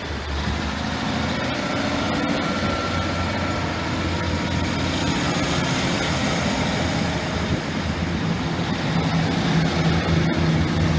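Northern Class 150 Sprinter diesel multiple unit pulling away from the platform, its underfloor diesel engines running steadily under power, a little louder toward the end.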